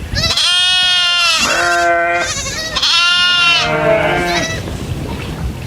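Goats bleating: about four drawn-out, wavering bleats in quick succession, some overlapping, with a lower, falling call near the end.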